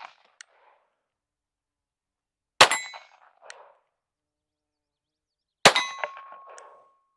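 Two shots from a Taurus TX22 .22 LR semi-automatic pistol, about three seconds apart. Each is followed by a metallic ring, the second one holding a steady tone for about two seconds.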